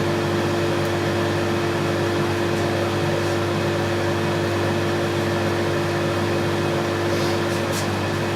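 Table saw motor running at a steady pitch, with a few faint light ticks near the end.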